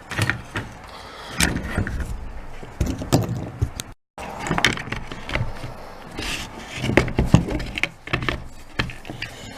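Irregular clicks, knocks and rattles of the saw's gear-case parts being handled, with a brief cut to silence about four seconds in.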